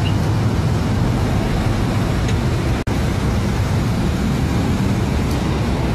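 Sport motorcycle engine idling steadily through its aftermarket exhaust, with a low, even rumble; the sound cuts out for an instant about three seconds in.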